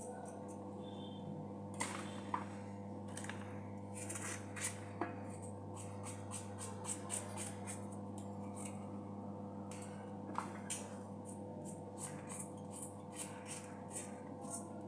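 Small kitchen knife cutting through a firm raw vegetable held in the hand: an irregular run of short, crisp cutting clicks over a steady low hum.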